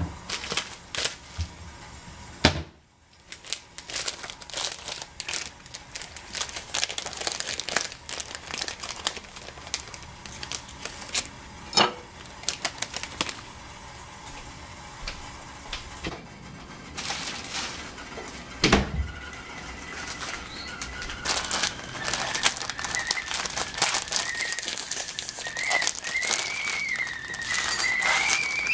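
Crinkling plastic packets, a biscuit wrapper among them, with clicks and light knocks on a tiled counter. About two-thirds of the way in, a stovetop kettle starts to whistle, a thin tone that rises slowly and wavers as the water comes to the boil.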